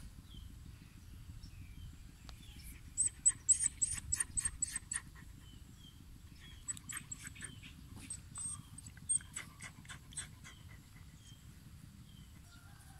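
Dog panting in quick runs of short breaths, one run about three seconds in and another from about six and a half to ten seconds.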